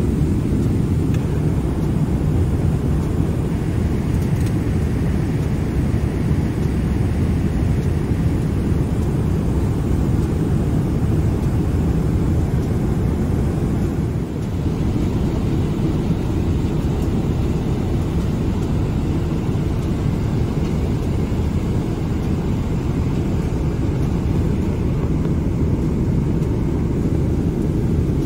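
Steady low rumbling cabin noise of a Boeing 777-300ER in cruise flight: engine and airflow noise heard from an economy seat.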